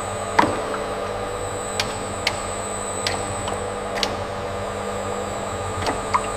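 Plywood-factory machinery running with a steady drone and a thin high whine, punctuated every second or so by short sharp clicks and knocks.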